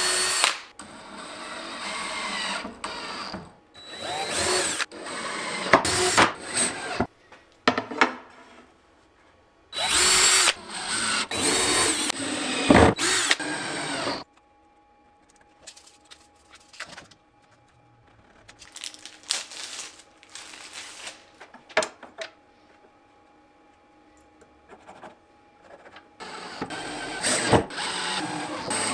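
Power drill running in repeated short bursts, pre-drilling through the T-track's holes with a spring-loaded self-centering bit and driving screws to fasten the track down. The bursts come thick through the first half, pause for a long quiet stretch, then one more run near the end.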